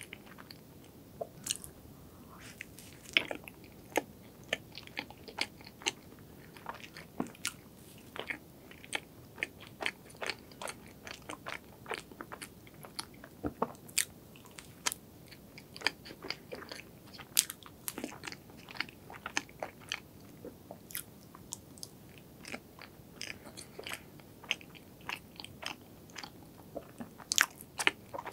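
Close-miked eating sounds: a star-shaped chocolate-and-strawberry dessert being bitten and chewed, with frequent short, crisp clicks and mouth sounds at an irregular pace.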